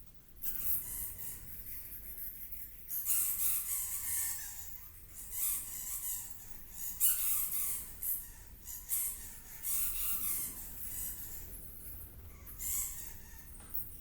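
Birds calling: a run of harsh, high-pitched calls, each about half a second to a second long, coming every second or so, over a faint low rumble.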